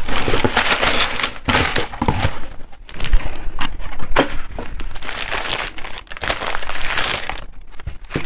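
Packing paper crinkling and rustling as it is pulled out and handled while a parcel is unwrapped, in bursts with brief pauses.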